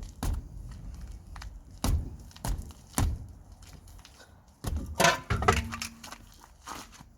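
Scattered knocks and clunks of metal tools and parts being handled at a car's front wheel hub during brake work, with a short, busier run of clatter about five seconds in.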